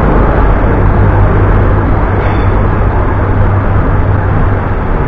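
Diesel locomotive of an arriving passenger train running past close by, a loud, steady low rumble.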